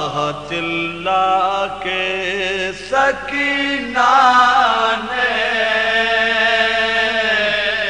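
Male voices chanting an Urdu marsiya in soazkhwani style, without instruments, in long held notes that bend and glide between pitches.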